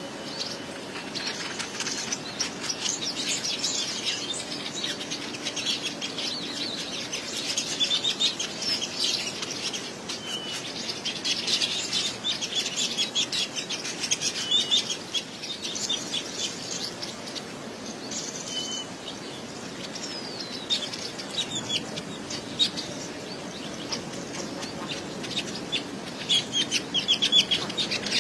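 A colony of weaver birds chattering: a dense, continuous stream of rapid high chirps and trills from many birds at once, in fluctuating flurries.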